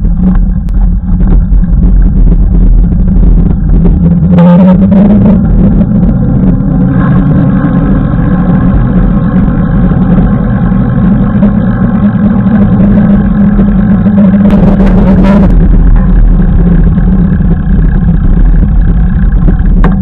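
A motor running steadily with a hum, its pitch rising about four seconds in, over a heavy wind rumble on the microphone.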